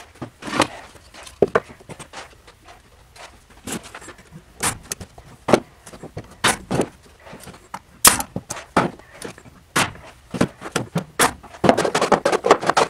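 Workshop handling noise: a series of sharp knocks and clacks at irregular intervals as an OSB board and plastic storage bins are shifted and set in place, with a denser rattling clatter near the end.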